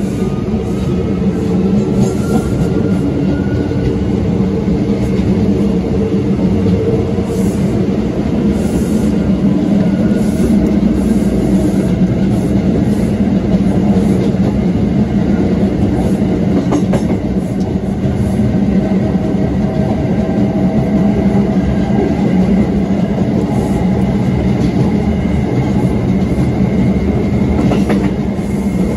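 Bombardier R179 subway car with MITRAC AC traction running along the track: steady wheel-on-rail noise with a faint electric motor whine that rises in pitch over the first few seconds, then holds steady.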